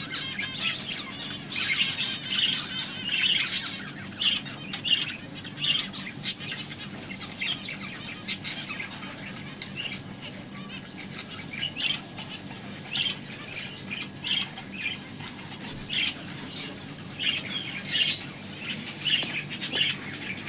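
Small birds chirping: many short, high chirps coming in quick, irregular clusters throughout.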